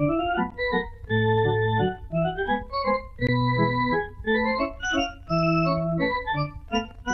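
Organ music: a brisk tune of short held chords and quick-moving notes.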